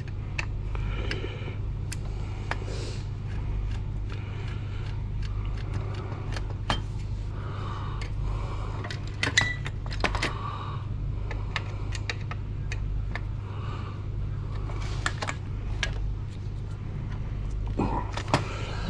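Scattered metal clicks and clinks from a screwdriver and driver bits working on the screws of an old computer's metal case, over a steady low hum.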